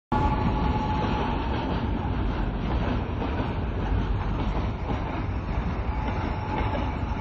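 A train passing close by on the rails, with a steady rumble of wheels and carriages.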